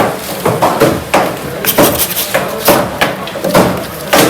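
Fish being chopped with a heavy knife or cleaver on a cutting block: repeated sharp blows, roughly two a second.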